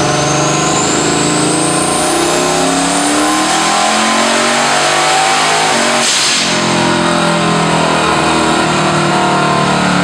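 Turbocharged Hemi V8 in a Jeep Grand Cherokee running under load on a chassis dyno, the turbo's whine climbing steadily in pitch for about four seconds and then holding. About six seconds in there is a rush of hiss, after which the engine runs on and the high whine sinks slowly.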